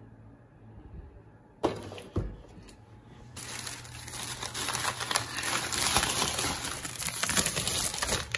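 A thin plastic grocery bag rustling and crinkling steadily as hands rummage through it, starting about three seconds in after a couple of short knocks.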